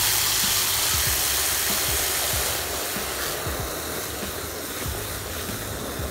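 Garden hose with a spray nozzle jetting water into a plastic bucket of car shampoo, a steady hissing splash as the suds build. The hiss grows a little softer from about halfway through.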